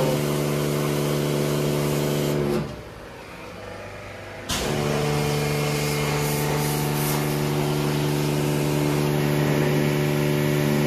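Pressure washer running: a steady motor hum under the hiss of the water spray. It drops out about two and a half seconds in for about two seconds, then comes back unchanged.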